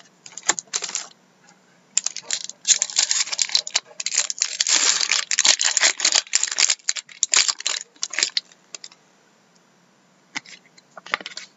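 Foil wrapper of a Black Diamond hockey card pack crinkling and tearing as it is ripped open, in dense bursts from about two seconds in until about eight seconds in. A few separate clicks follow near the end.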